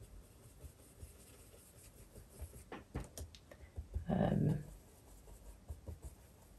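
Faint scratching and light tapping of a small blending brush working anthracite ink through a layering stencil onto card. About four seconds in there is a brief murmur.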